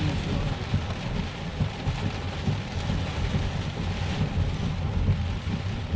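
Heavy rain drumming steadily on a car's roof, heard from inside the car, with a deep rumbling undertone.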